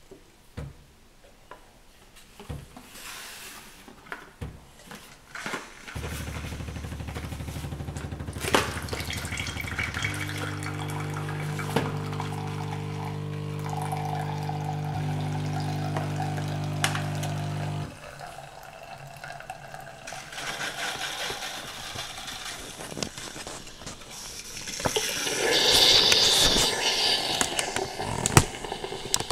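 Bosch Tassimo pod machine's pump buzzing steadily for about twelve seconds as liquid pours into the glass, then cutting out. Hissing and sputtering follow, with a louder burst of steam near the end.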